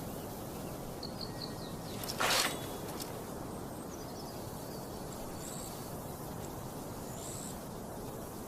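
Outdoor ambience: a steady background hiss with faint bird chirps, and one brief swish about two seconds in.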